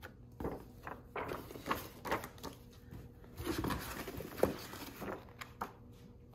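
Large paper posters being handled, rustling and crackling in a string of irregular short bursts.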